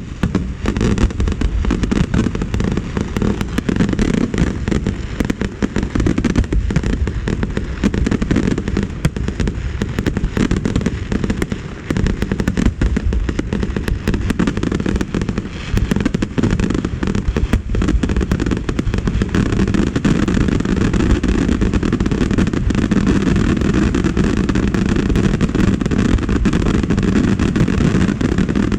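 Fireworks display: a dense, continuous barrage of aerial shell bursts and crackling reports, growing denser and louder about two-thirds of the way through.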